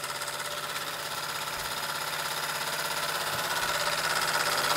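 Weeden 500 vertical model steam engine, its double-acting cylinder working single-acting, running steadily on steam with a fast, even beat over a steady hiss. It runs smooth as silk and gets gradually louder.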